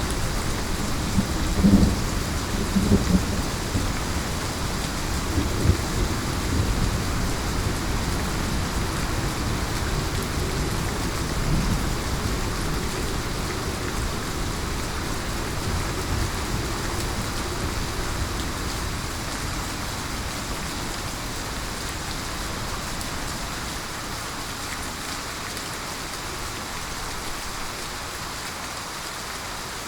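Heavy rain pouring steadily while thunder rolls. The low rumble swells several times in the first dozen seconds, then slowly dies away, leaving the rain.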